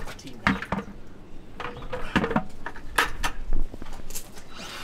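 Scattered metallic clanks and knocks, a handful of separate sharp hits, as a metal oil-drain bucket is shuffled into place on gravel under the tractor's drain.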